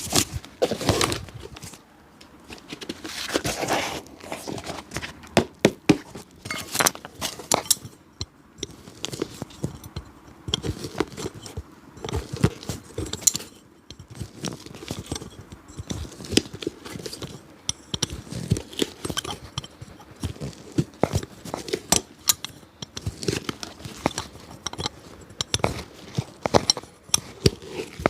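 Hand work on an old shoe: an irregular run of sharp clicks and taps with scraping and rustling between them.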